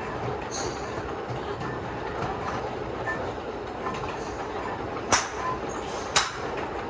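Train running with a steady rumble and hiss, with two sharp clacks about five and six seconds in.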